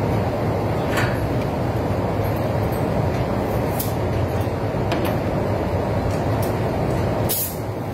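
Spray booth ventilation running: a steady rush of air with a low hum, with a few short hisses over it.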